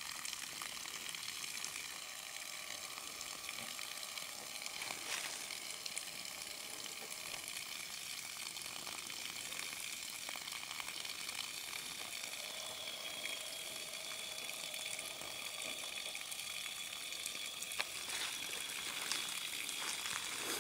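A strong stream of water from a hose pouring into a blue plastic drum: a steady splashing hiss, the flow arriving at good pressure. A thin steady high tone joins about halfway through, and there are a few faint knocks.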